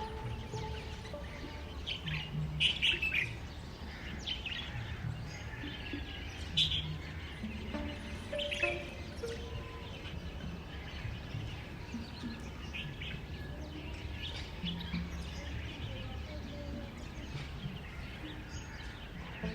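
Small birds chirping in short, scattered calls, loudest about three, seven and nine seconds in, over a steady low hum.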